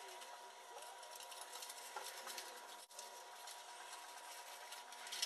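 Faint hissy room tone with a steady low hum, scattered small clicks and taps, and a brief cluster of sharper clicks at the end.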